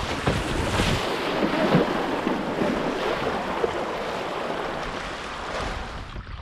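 River rapids rushing and splashing against the sides of an open canoe running whitewater, with wind buffeting the microphone. The rush eases slightly near the end.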